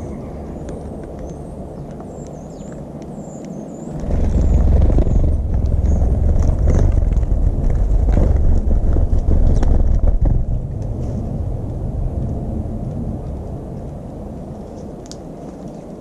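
A loud low rumble that jumps up suddenly about four seconds in and fades slowly over the last few seconds, with small birds chirping high and faint in the first few seconds and scattered light clicks.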